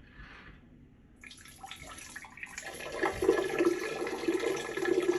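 A stream of urine splashing into the water of a toilet bowl, starting about a second in and getting louder and fuller a couple of seconds later.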